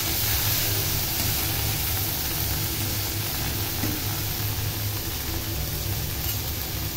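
Small dried fish (shutki) frying in oil in an iron wok: a steady sizzling hiss with a low hum underneath.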